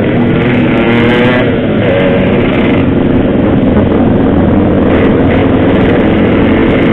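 Yamaha RX-King's single-cylinder two-stroke engine running under way, its pitch shifting with the throttle in the first couple of seconds, then holding steadier.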